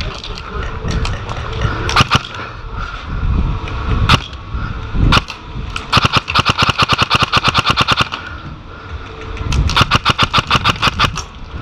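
Airsoft electric gun, a Lancer Tactical Mk18 replica with a high-speed motor and steel gears, firing a few single shots and then two rapid full-auto bursts of about fifteen shots a second, the first about six seconds in and the second near the end. Wind rumbles on the microphone throughout.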